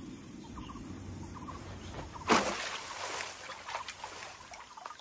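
Wild natural ambience: short animal calls repeating about once a second over a low rumble, with a sudden loud rushing noise about two seconds in that fades over a second, then a few sharp knocks.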